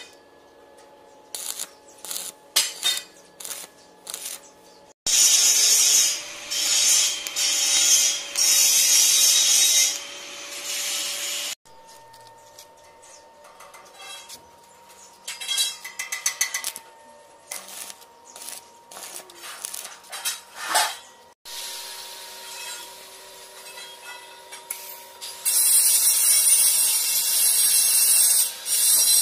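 Electric arc welding on steel tubing: two long stretches of loud crackling hiss from the arc, starting and stopping abruptly, with short clicks and taps of metal in the quieter gaps between them.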